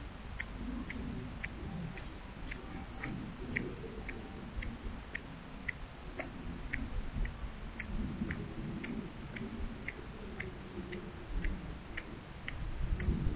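Footsteps of a person walking on pavement: a light click about twice a second, at an even walking pace, over a low uneven rumble.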